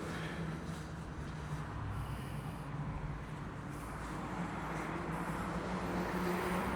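Faint, steady low hum of a distant engine or motor vehicle, under a light even outdoor background noise.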